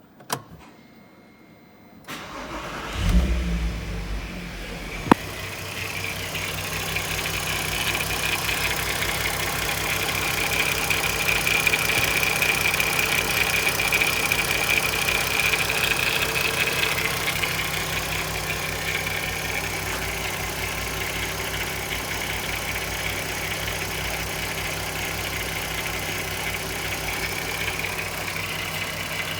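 Audi TT's 3.2 VR6 engine cranked and started about two to three seconds in, then idling steadily with a high-pitched whine over the running. It is an engine with a worn timing chain, due for chain replacement.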